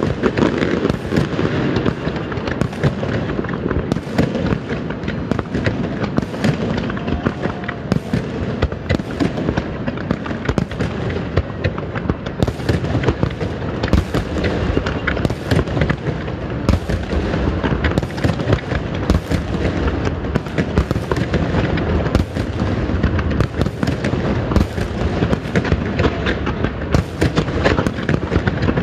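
Large fireworks display going off in a rapid, unbroken barrage of bangs and crackles.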